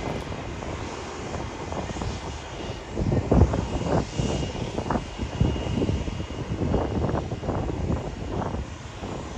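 McDonnell Douglas MD-81 jet airliner's engines running, a continuous rumble that surges unevenly in gusts, with a faint thin whine about four seconds in.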